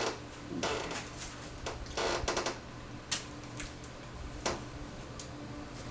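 Crunchy food being bitten and chewed close to the microphone: a string of short, irregular crunches over a steady low hum.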